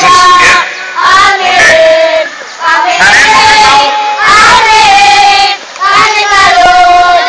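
A group of scout children singing a yel-yel cheer together, loud, in short sung phrases with brief pauses between them.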